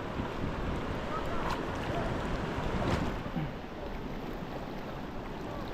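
Mountain river rushing steadily, with faint voices calling over it.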